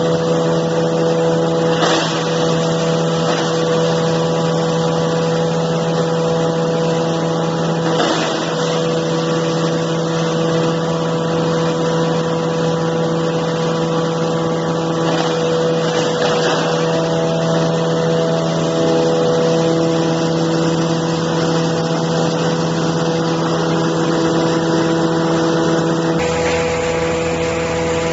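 Hammer mill cardboard grinder running with a steady hum, with brief noisy surges about 2, 8 and 16 seconds in.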